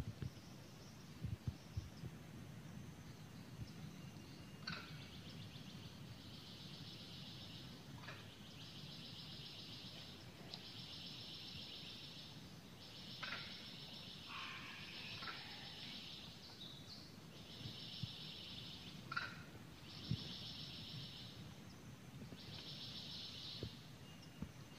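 Faint, high, fast trills from forest wildlife, repeated about eight times in spells of one to two seconds, over a low rumble.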